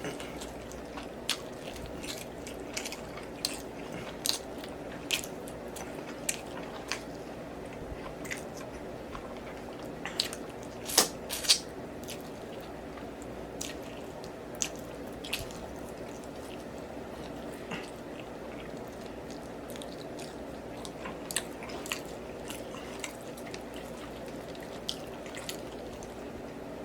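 Close-miked wet chewing and lip smacking of someone eating sauced baby back ribs, with scattered sharp smacks and a louder cluster about eleven seconds in, over a steady low hum.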